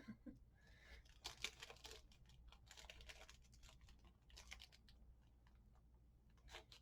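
Faint rustling and scattered light clicks of small plastic keycaps being handled and taken from a little bag.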